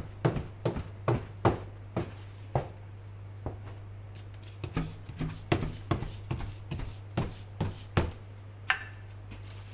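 A knife chopping on a cutting board, cutting patongko dough into strips in quick irregular strokes with a short pause about three seconds in, over a steady low hum.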